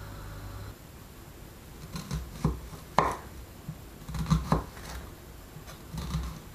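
Chef's knife cutting an onion on a wooden chopping board: a few irregular sharp knocks of the blade on the board, the loudest about three seconds in, with some duller low knocks between.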